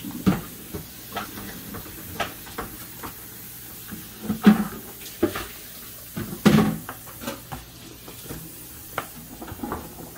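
Kitchen handling noise: irregular clicks, taps and knocks of containers, utensils and plastic bags being moved about on a counter, with a couple of louder knocks around the middle.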